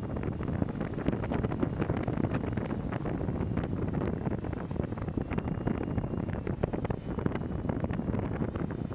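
Airflow buffeting the microphone of a camera slung under a paraglider in flight: a steady rush of wind noise with many small crackles running through it.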